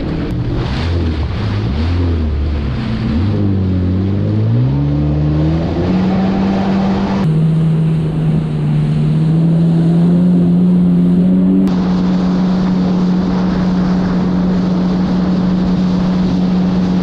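Yamaha WaveRunner jet ski's engine climbing in pitch as it accelerates over the first few seconds, then running steadily at speed, with rushing water and wind on the microphone.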